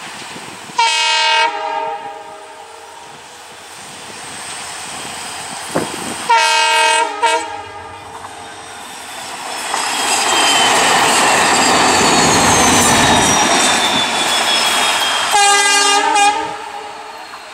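Twin WDP4D diesel locomotives coupled together running light: their many-tone horn sounds three times, about a second each, near the start, around six seconds in and near the end. Between the second and third blasts the locomotives pass close with a loud rush of engine and wheel noise and a high falling whine.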